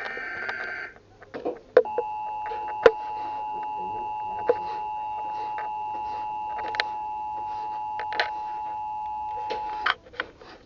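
Emergency Alert System tornado warning: the last harsh, screechy SAME data burst of the header ends in the first second. About a second later the steady EAS two-tone attention signal sounds for about eight seconds and cuts off sharply, with a few clicks over it.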